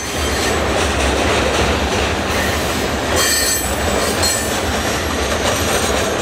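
Covered grain hopper cars of a freight train rolling by close, wheels rumbling and clattering on the rails, with a brief high wheel squeal about three seconds in.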